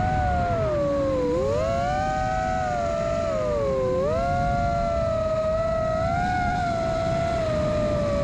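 FPV quadcopter's brushless motors (iFlight XING2 2207 1855KV) and propellers whining, the pitch dipping sharply twice as the throttle drops and climbing back each time, with heavy wind rumble on the microphone.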